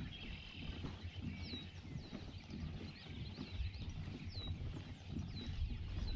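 Short, sharp bird calls, each dropping quickly in pitch, repeat every half second to a second over a low, uneven rumble.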